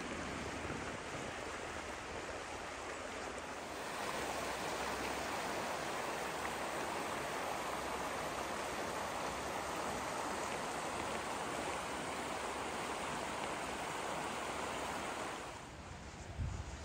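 Shallow mountain stream rushing steadily over rocks, growing louder about four seconds in. Near the end the water sound drops away and footsteps begin crunching in snow.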